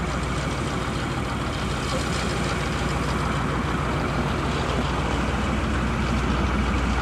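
De Havilland Beaver's radial engine running at low power as the plane taxis past, a steady low drone that grows a little louder toward the end.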